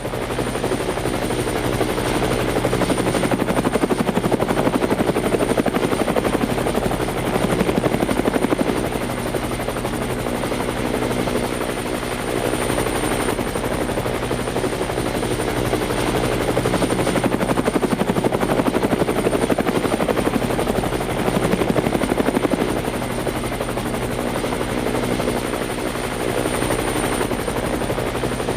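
Helicopter rotor blades chopping rapidly and evenly over the steady drone of the engine, with a thin high whine, swelling a little louder twice.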